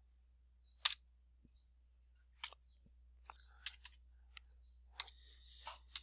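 Computer keyboard keystrokes and mouse clicks as a spreadsheet formula is entered: about eight sharp, irregularly spaced clicks, with a brief soft hiss near the end.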